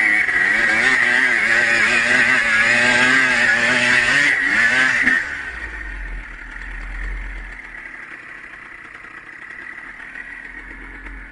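Dirt bike engine revving hard under load for about five seconds, its pitch wavering up and down. It then drops off sharply to a quieter, low rumbling run.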